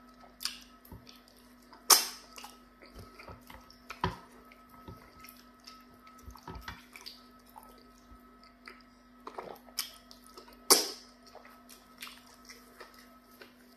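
Close, wet eating sounds of pounded yam fufu and vegetable soup eaten by hand: fingers working in the soup, chewing, and several sharp wet smacks, the loudest about two seconds in and near eleven seconds.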